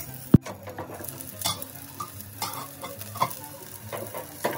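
Appe batter sizzling in oil in the cups of an appe pan, with a spoon clicking and scraping against the pan now and then. There is one sharp click about a third of a second in.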